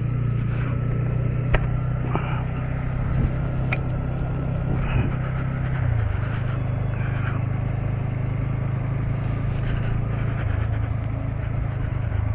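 Vehicle engine idling steadily with a low hum that shifts slightly partway through, and a few sharp clicks over it.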